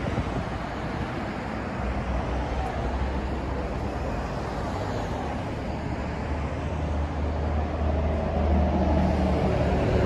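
Road traffic over a steady outdoor background, with a vehicle's engine hum growing louder in the last few seconds as it approaches.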